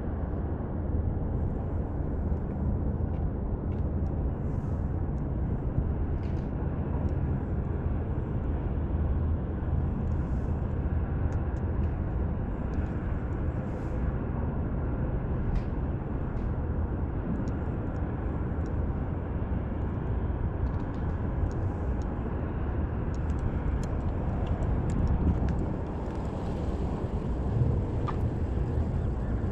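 Steady low rumbling background noise with faint scattered ticks.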